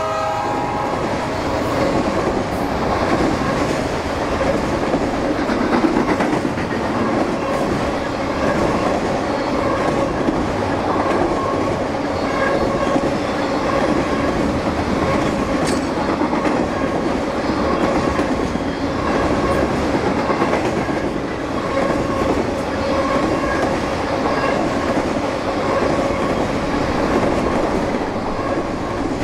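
A long train of empty autorack freight cars rolling steadily past on steel wheels, a continuous rumble and clatter of wheels on rail, with a faint high tone that comes and goes.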